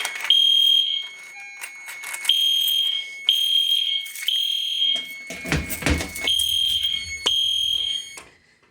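EST Genesis fire alarm horns sounding the temporal-3 evacuation pattern: high-pitched beeps in groups of three with a longer pause between groups. The beeping cuts off near the end as the system is silenced. A short low knock comes between groups a little past the middle.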